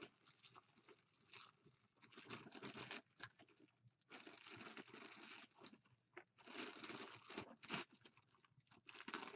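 Clear plastic bag crinkling and crackling in the hands in irregular bursts, as it is pulled and worked at to get out the staples holding it shut.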